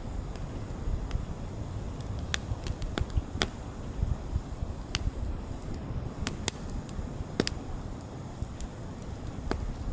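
Wood fire burning and crackling, with scattered sharp pops over a steady low rumble.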